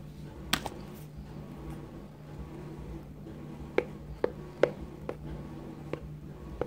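A plastic spoon stirring thick, foamy slime in a bowl, knocking against the bowl in a string of sharp clicks from just before four seconds in. There is a single louder knock about half a second in, and a steady low hum underneath.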